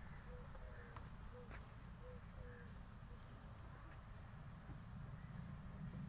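Faint, high-pitched insect chirping in short, rapid trains that repeat throughout, over a low steady rumble, with a few soft clicks.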